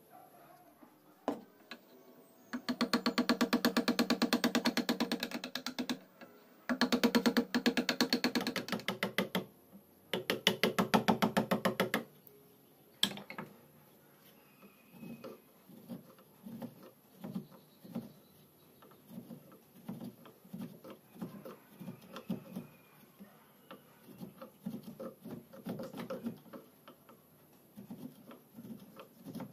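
Hand woodworking on a wooden spoon blank held in a bench vise: three spells of a loud, fast, even rasping rattle in the first half, then a sharp click and a long run of softer scraping strokes of a chisel on the wood, about two a second.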